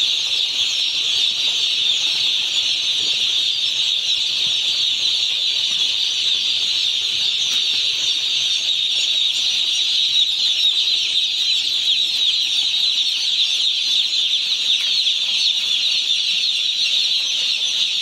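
Dense chorus of high-pitched peeping from a large flock of day-old chicks, many voices overlapping into one unbroken, even sound.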